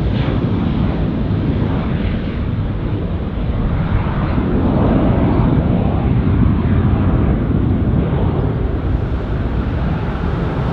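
Jet engines of a Boeing 737-800 (CFM56-7B turbofans) at taxi power, a steady low rumble that swells slightly about halfway through.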